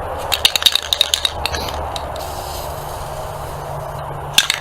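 Nearly empty aerosol spray-paint can being shaken hard, its mixing ball rattling in quick clicks for about a second, then again near the end after a pause.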